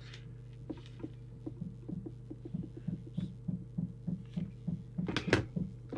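Muffled hammering from building work in the next room, heard through the wall as a steady run of dull blows at about three a second over a low hum, with a couple of sharper, louder knocks near the end.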